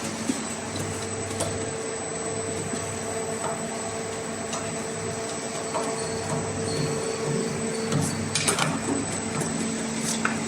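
CNC arch bending machine running: a steady motor hum with a few sharp clicks, the loudest about eight and a half seconds in.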